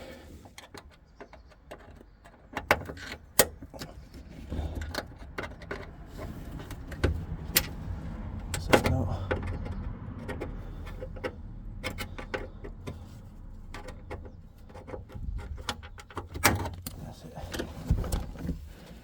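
Scattered clicks, knocks and scrapes of a screwdriver and trim tool prising plastic headliner clips out of a car's roof lining.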